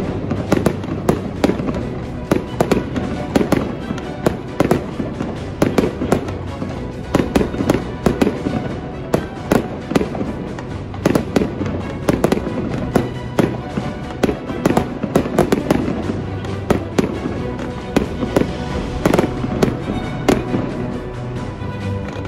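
Aerial fireworks shells bursting in quick, irregular succession, a dense run of bangs throughout, with background music laid over them.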